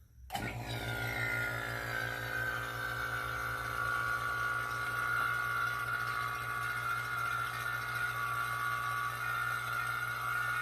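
Electric A/C vacuum pump switching on about a third of a second in and running steadily, evacuating a car's air-conditioning system through the gauge manifold. A whine that drops in pitch over the first couple of seconds, then holds steady over a low hum.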